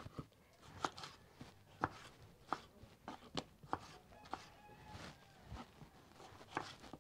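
Kitchen knife slicing tomatoes and knocking on a wooden cutting board: sharp, irregular knocks, roughly one a second.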